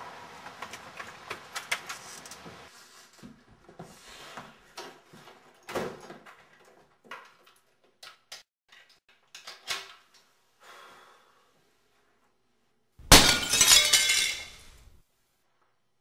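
A few clicks and knocks of a door and its chain lock being handled, then about thirteen seconds in a loud smashing crash of something breaking that lasts about two seconds.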